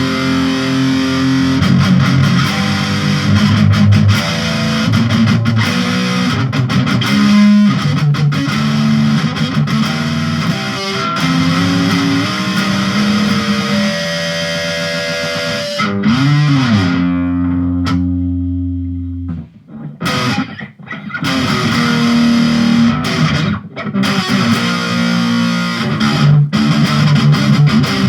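Distorted electric guitar in drop D tuning playing fast, low riffs. About sixteen seconds in, a note rises in pitch and falls back, is held for a couple of seconds and then cut off. A few choppy stops follow before the riffing picks up again.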